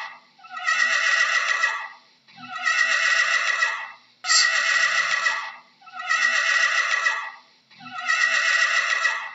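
Horse whinnying again and again: about five neighs, each lasting about a second and a half, coming roughly every two seconds with short pauses between, each dropping in pitch as it ends.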